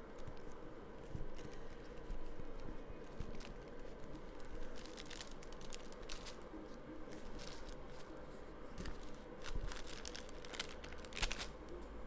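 Plastic bag crinkling and rustling as it is handled, with irregular crackles that come thickest in the second half and one sharper crackle near the end: leftover air-dry clay being put back into its bag.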